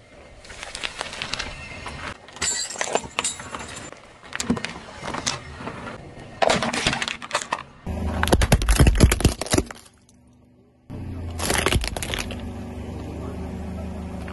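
Car tyre slowly rolling over and crushing objects, with repeated crunching and crackling. About eight seconds in, a plastic toy breaks apart under the wheel with loud cracking over a low rumble; after a sudden cut to near silence comes another sharp crack, then a steady low engine hum.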